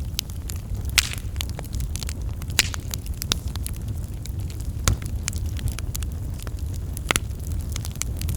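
Wood fire burning with a steady low rumble and irregular sharp crackles and pops, a few louder snaps standing out.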